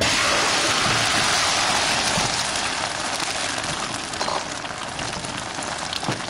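Beaten egg with chopped greens poured into hot oil in a wok, frying with a loud sizzle. The sizzle starts suddenly as the egg hits the oil and eases slightly as it sets.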